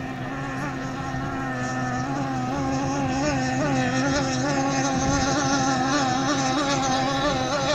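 Methanol-fuelled racing hydroplane's outboard motor running at high revs, its pitch wavering up and down as the boat skims the chop, growing steadily louder as it approaches.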